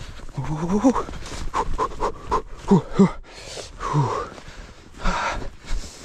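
A man breathing hard, with a string of short pitched groans and gasping vocal sounds between breathy exhalations.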